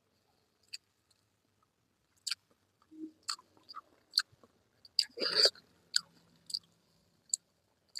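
Close-up mouth sounds of a person eating: wet chewing clicks and lip smacks at irregular intervals, with one longer, louder smack about five seconds in.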